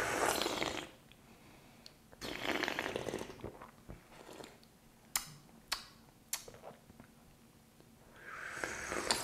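Tea being slurped from small tasting cups: a short airy slurp at the start and a longer one about two seconds in, with another building near the end. In between, three sharp little clicks about half a second apart.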